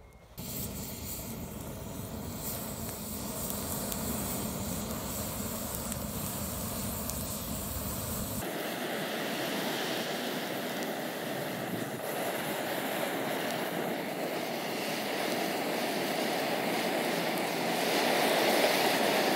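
Steady rushing noise over a burning charcoal and wood fire in an iron fire bowl. The low rumble drops out about eight seconds in, and the noise grows louder near the end.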